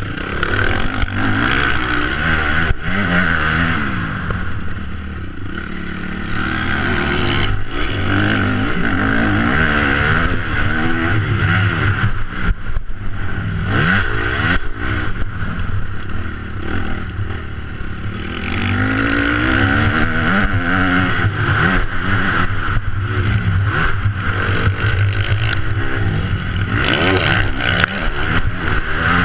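Motocross bike engine heard from a camera on its front fender, revving up and dropping back again and again while being ridden round a dirt track, with its pitch falling away about 5 and 18 seconds in. Wind rush and dirt noise run underneath.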